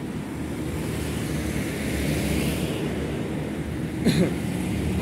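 Small crawler excavator's diesel engine running steadily under load as its arm lifts and swings the bucket, with a hiss that swells and fades in the middle.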